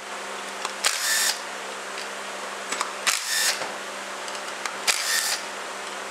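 Cordless drill-driver with a T25 Torx bit spinning valve body bolts out of a 42LE transmission, in three short whirring bursts of under half a second each.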